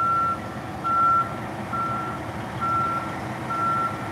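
Yard truck (terminal tractor) backup alarm beeping steadily, about one beep a second, while the tractor reverses a box trailer. The truck's engine is running underneath.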